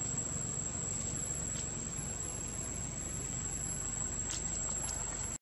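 Steady outdoor background noise: a low rumble under a constant thin high-pitched whine, with a few faint chirps about four seconds in.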